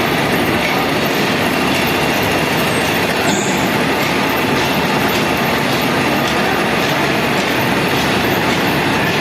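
Heavy metalworking machinery running with a steady, loud mechanical rumble and clatter.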